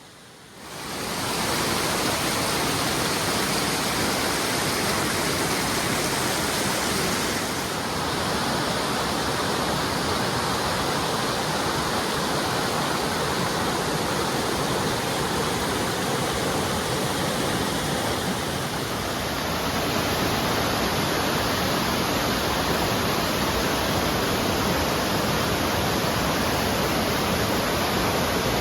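Waterfall running full after heavy rain: a steady rush of falling water that fades in over the first second or two.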